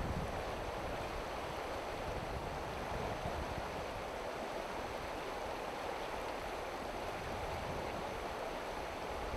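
River water rushing over rocks in a riffle: a steady, even rush.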